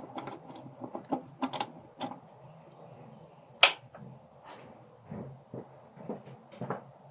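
Hand tools and parts being handled during engine-bay work: a run of short clicks and knocks, with one sharp knock a little past halfway that is the loudest.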